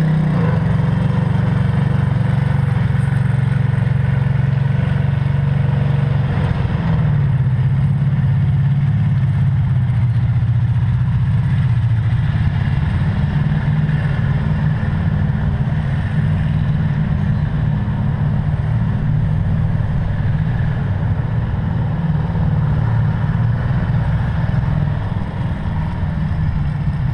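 A vehicle engine running steadily at low road speed, a low drone throughout. Its pitch drops right at the start and shifts again about seven seconds in as the vehicle eases off and picks up.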